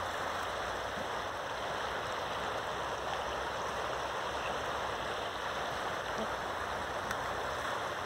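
A shallow river flowing over rocks: a steady, even rush of moving water.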